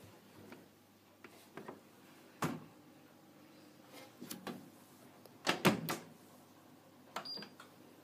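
Knocks and bumps from handling the door and laundry of a Hotpoint CTD85 condenser tumble dryer that is not running: scattered soft knocks, the loudest a quick cluster of three about five and a half seconds in, and a short click about a second later.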